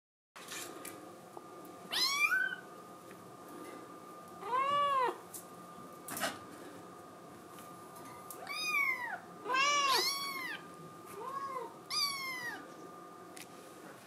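Kitten meowing repeatedly, about seven high meows that rise and fall in pitch, crying to be let out of its pen.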